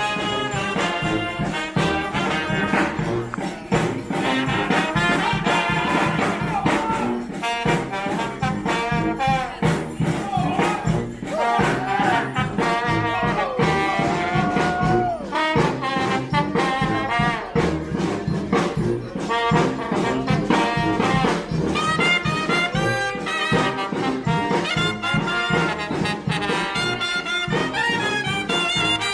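Brass band playing: trumpets and trombones over a steady drum beat.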